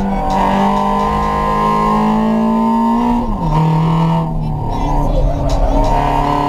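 VW Gol 1.0 four-cylinder engine, with direct exhaust and a sport air filter, pulling hard with its pitch slowly rising; about three seconds in the revs drop sharply with a gear change, and the engine then pulls on at lower revs. Heard from inside the cabin.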